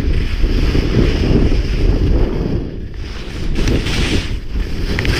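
Wind buffeting the camera microphone while skiing downhill, with the hiss of skis sliding over snow that swells about three and a half seconds in.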